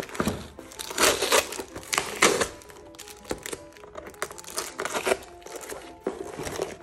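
Clear plastic packaging film crinkling in several loud bursts as it is handled and pulled off a cardboard box insert, with soft music playing underneath.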